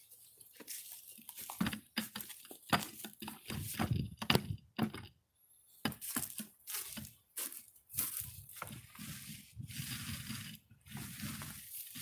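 Paint roller rolling thick white waterproofing coating onto plywood, a sticky crackling that comes in irregular strokes, with a short pause about five seconds in.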